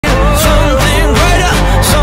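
Intro music with a melody over a steady beat, starting abruptly at the very top.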